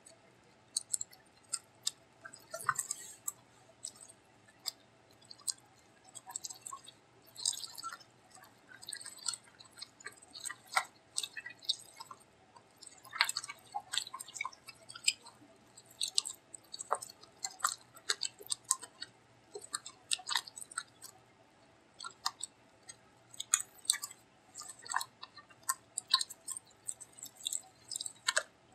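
Wet, sticky squelching and irregular popping clicks of borax-and-white-glue slime being squeezed and kneaded by hand in a plastic tub, as the borax turns the glue into slime.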